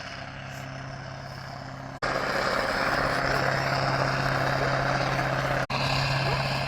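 A steady engine-like drone with a rushing noise over it, growing louder about two seconds in and breaking off abruptly for an instant twice.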